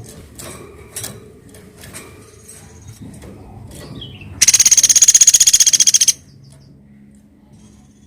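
A woodpecker gives one loud, high, fast rattling trill lasting under two seconds, about halfway through, after a few faint scattered taps.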